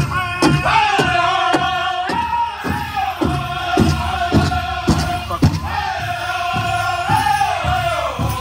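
Southern-style powwow drum group singing a crow hop song: several voices singing together in long, sliding phrases over a big drum struck in unison about twice a second.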